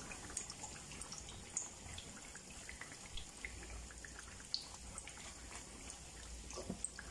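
Faint, scattered crackle of ghee on a hot tawa as burger buns warm on it, over a low steady hum.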